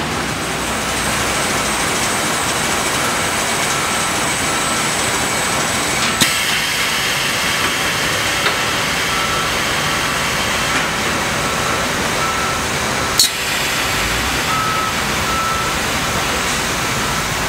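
Steady machine noise of an automated palletizing line, with a short beep repeating about once a second. Two sharp clicks stand out, about six and thirteen seconds in.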